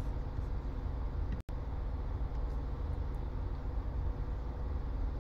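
Steady low background rumble with faint hum, broken once by a split-second dropout about one and a half seconds in.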